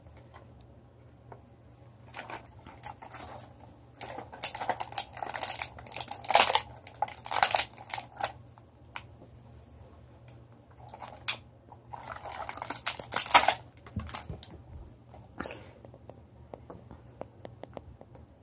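Toy packaging crinkling and rustling as a Hatchimals surprise pack is opened by hand and its small eggs are taken out. The handling comes in several bursts, loudest about four to eight and twelve to thirteen and a half seconds in, with a few small clicks and taps near the end.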